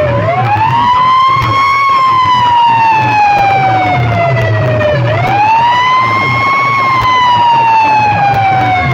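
A siren sound effect played very loud through a DJ speaker stack. It wails up quickly and then slides slowly back down, about every five seconds, over a fast low pulse.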